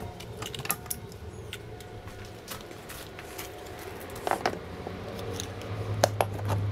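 Metal hand tools, pliers among them, clinking against each other and the wooden tool board as they are hung on nails: scattered sharp clicks, with clusters about four and six seconds in.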